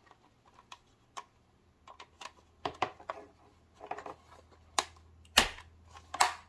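Hard plastic toy parts of a Talon Fighter clicking and knocking together as its red wing piece is handled and fitted against the orange body: scattered light clicks, with a louder knock about five and a half seconds in.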